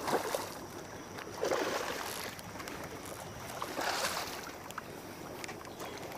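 A hooked redfish thrashing at the surface beside the boat: three bursts of water splashing, about two seconds apart.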